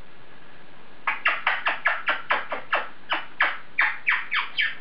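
African grey parrot making a quick run of about fifteen short chirps, each falling in pitch, at roughly four a second, starting about a second in.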